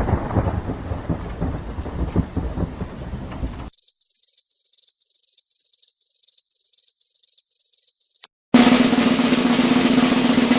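A run of stock sound effects. Thunder rumbles in rain, then cuts off into a string of short, high beeps, about two or three a second. After a click and a moment of silence, a drum roll starts.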